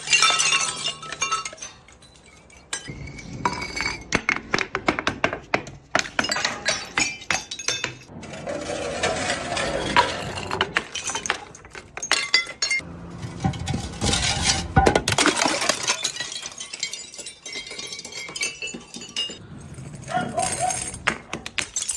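Glass bottles breaking, with dense runs of sharp clinks and crackles of glass shards coming in several bursts.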